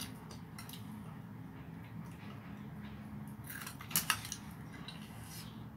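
A few sharp clinks of an eating utensil against a small sauce bowl and plate, about three and a half to four seconds in, over a steady low hum.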